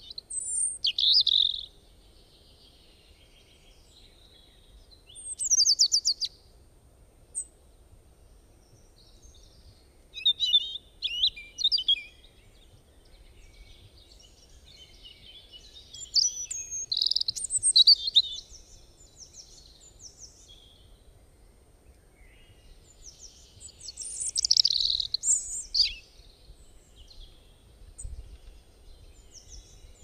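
Songbirds singing: about five bursts of high chirps and fast trills a few seconds apart, over a faint low background hiss.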